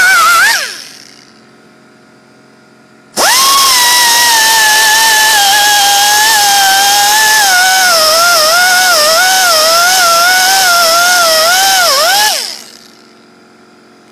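Pneumatic angle die grinder with a 100-grit abrasive disc, running at a high whine with air hiss. It winds down in the first second, then starts abruptly about three seconds in and runs for about nine seconds, its pitch dipping again and again as the disc is pressed onto the work. The pitch sags gradually as the small air compressor runs low, and the grinder winds down near the end.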